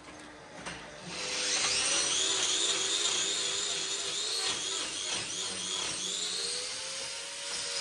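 Angle grinder with a hoof-trimming disc cutting a cow's hoof: a steady high whine that starts about a second in, its pitch wavering as the disc bites into the horn.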